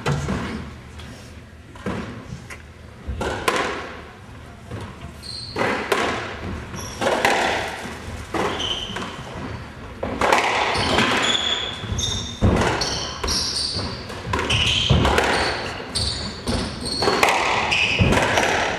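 Squash rally: the ball cracks off rackets and thuds against the court walls again and again at an uneven pace, echoing in the court. Between the hits, court shoes squeak briefly on the hardwood floor.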